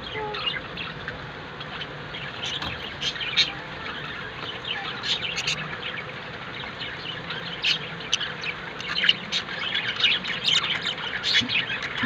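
Budgerigars chattering in a cage: a steady stream of short, high chirps and squawks, with a few louder calls standing out.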